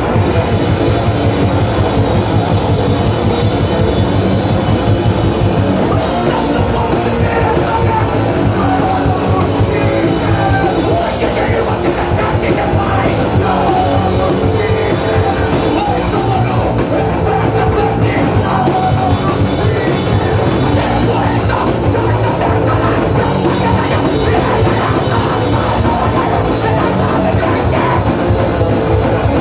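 Live punk band playing loud: distorted electric guitar and bass over a drum kit, with a vocalist singing into a microphone.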